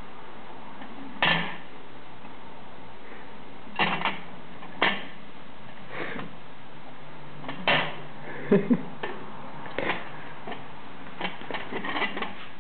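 Clear blue plastic pet exercise ball rolling over a wooden floor, giving irregular hollow plastic knocks and clatters, the loudest about a second in and a quick double knock past the middle.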